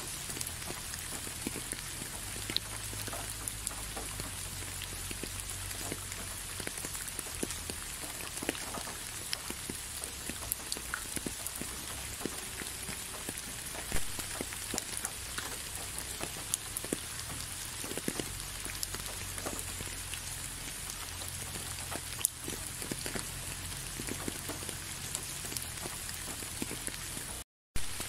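Steady rain falling, an even hiss with scattered louder drops landing close by. The sound cuts out for a moment near the end.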